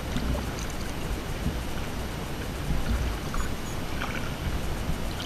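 Wind noise on the microphone over lapping lake water, with a few faint splashes from a kayak paddle stroking.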